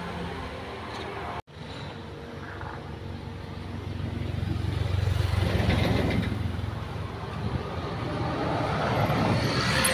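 Motor traffic going by: a steady low engine hum, with vehicles passing that swell up about halfway through and again near the end. The sound drops out for a moment just before a second and a half in.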